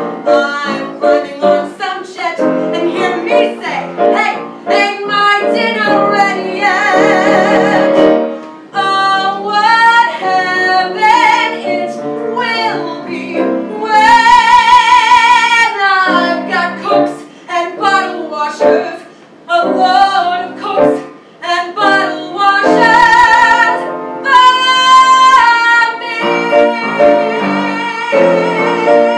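A woman singing a musical-theatre song in a full, belted voice over piano accompaniment, with several long held notes sung with a wide vibrato.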